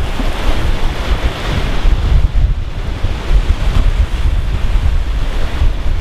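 Wind buffeting the microphone in a heavy low rumble over the steady rush and splash of sea water streaming past the side of a moving boat.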